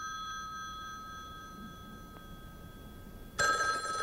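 Desk telephone bell ringing: one ring dies away over the first couple of seconds, then the next ring starts about three and a half seconds in.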